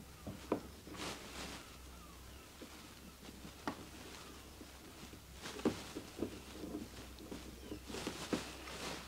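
Scattered light knocks, clicks and rustles of things being handled, over a faint low hum.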